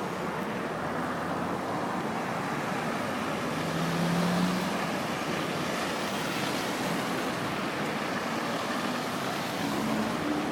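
Steady street traffic noise with engines running, and a short low engine hum about four seconds in.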